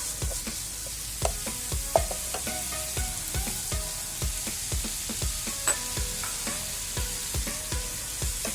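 Grated coconut being stirred into bubbling jaggery syrup in a pan, with a steady sizzle and the scrape and knock of the spoon, over background music with a steady beat.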